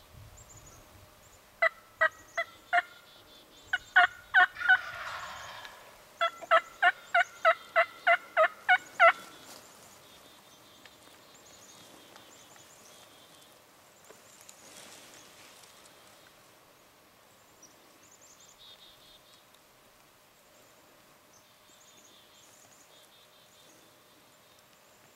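Wild turkey yelps: three runs of short, loud, evenly spaced notes, about three to four a second, with the longest run of about nine notes ending near nine seconds in.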